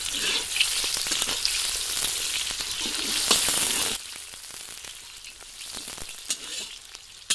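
Sliced onions sizzling in hot oil in a large iron kadhai, with a flat iron spatula scraping and clicking against the pan as they are stirred. The sizzle drops much quieter about four seconds in.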